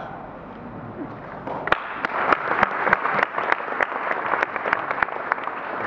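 An audience applauding: the clapping swells about a second and a half in, with sharp individual claps standing out.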